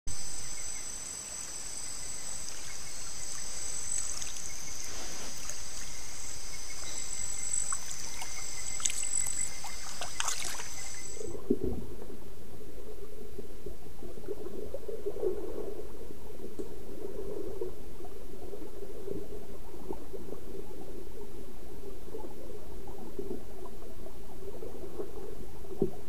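Creek at night: a steady high chorus of nocturnal insects, with a few splashes as a sitatunga wades through the water. About eleven seconds in, the sound changes abruptly to a steady low hum with water sloshing as African forest elephants wade in the creek.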